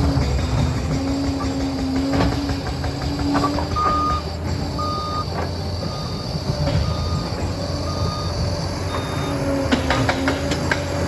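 Liebherr 746 crawler dozer's diesel engine running under work, with clanking from the tracks near the start and end. From about four seconds in, its reversing alarm beeps about once a second, six times, as it backs up.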